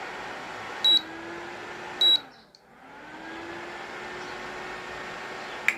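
An induction cooker's newly fitted cooling fan runs with a steady whir and hum. Two short electronic beeps come from the cooker about one and two seconds in. After the second beep the whir drops away, then spins back up and runs steadily, and a sharp click comes near the end.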